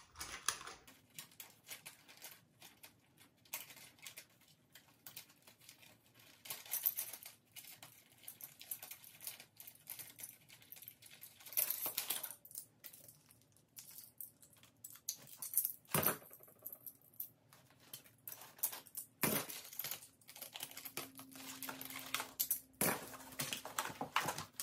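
Plastic claw hair clips being unclipped from their cardboard display card and handled: scattered light clicks, rattles and rustles, with a few sharper clicks about halfway through.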